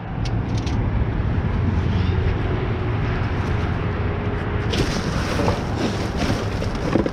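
Wind buffeting the microphone: a steady low rumble and hiss, with scattered rustles and knocks from about five seconds in.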